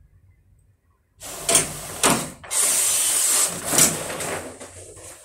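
HP DesignJet T2300 large-format printer releasing a finished copy: a loud mechanical rasp and paper rustle as the printed sheet is cut off and slides out, starting about a second in, with several louder surges over about three seconds, then fading.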